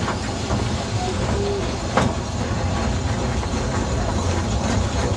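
Narrow-gauge steam train under way, heard from a carriage behind the Double Fairlie 0-4-0+0-4-0 locomotive Earl of Merioneth: a steady rumble and rattle of the coaches running over pointwork, with a sharp clank about two seconds in.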